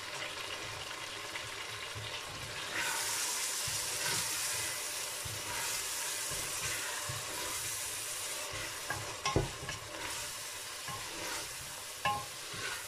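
Onion-tomato masala with ground spices sizzling as it fries in a stainless steel pressure cooker pot, stirred with a spatula. The sizzle grows louder about three seconds in, and the spatula knocks against the pot a few times near the end.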